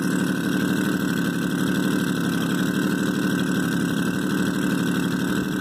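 Small engine of a 1986 four-wheeler ATV idling steadily, an even rapid pulse with no revving.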